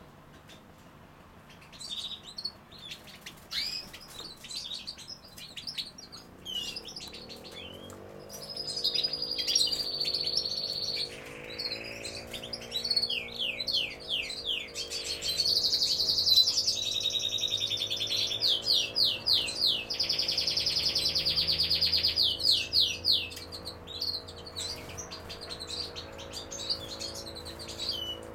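European goldfinches calling and singing. Scattered short chirps at first; then, about eight seconds in, a long twittering song of held high notes, trills and fast runs of repeated notes takes over, loudest in the middle.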